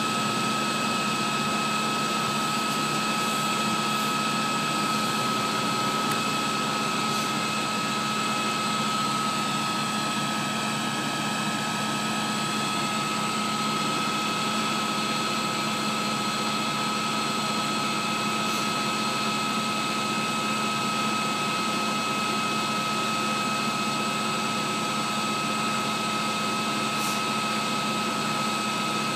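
Vehicle engine idling steadily, with a constant high-pitched whine over the hum.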